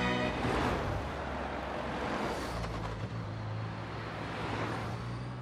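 Road traffic with cars passing, an even rushing noise and a steady low engine hum from about halfway, as the tail of music ends in the first moment.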